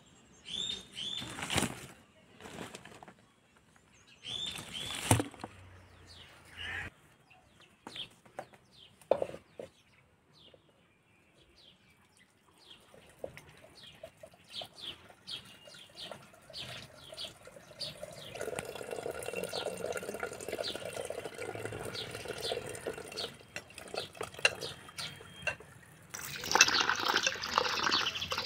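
A few light knocks as cauliflower florets drop into a wicker basket, then water from a plastic dispenser's tap runs into a red pot, growing steadily louder from about the middle, and hands splash in the water near the end.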